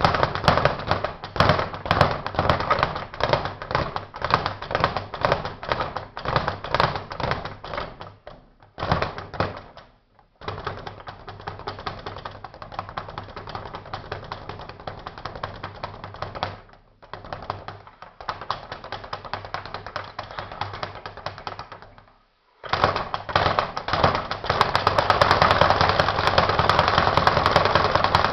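Speed bag punched in a fast, steady rhythm, the bag rattling against its rebound board. The rhythm breaks off briefly a few times, longest about a third of the way in, and after the last pause picks up louder and denser.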